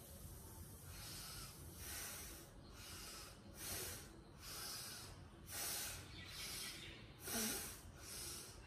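A woman breathing hard in and out, about once a second, with lips pursed, her breaths paced to a seated knee-rotation exercise.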